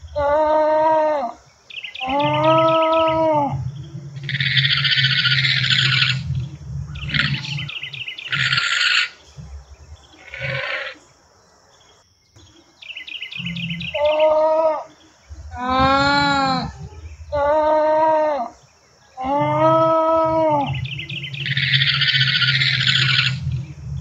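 Alpaca calls: a series of humming calls, each about a second long, rising and falling in pitch, alternating with harsher, shrill, noisy calls.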